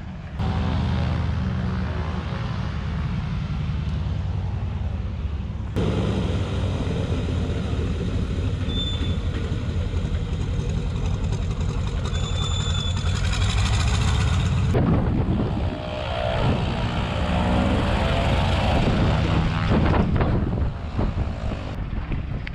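Antonov An-2 biplane's nine-cylinder radial piston engine running steadily close by, with a few abrupt jumps in level.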